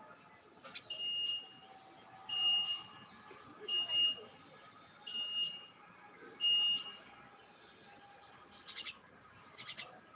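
A bird calling a single flat, high whistled note five times, each about half a second long and about a second and a half apart, followed by a few short, quick chirps near the end.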